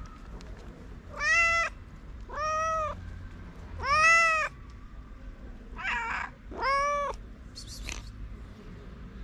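Street cats meowing: four loud, arching meows about a second apart, with a rougher, scratchier call just before the last one and a faint high squeak near the end.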